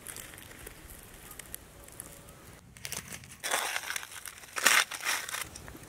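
Charred aluminium foil crinkling as a foil packet is peeled open by hand, in a run of bursts starting about three and a half seconds in, loudest a second later.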